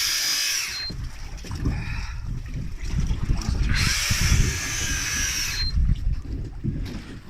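Big-game fishing reel whirring in two bursts of a second or two each, as line runs during the fight with a deep-dropped bluenose, over a steady low rumble of the boat.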